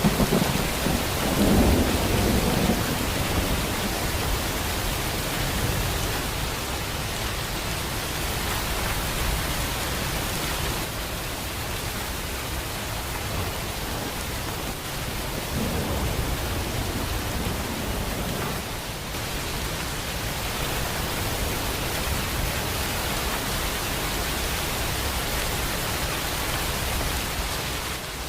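Heavy rain falling steadily in a thunderstorm, with thunder rumbling low underneath, loudest in the first few seconds and again about two-thirds of the way in.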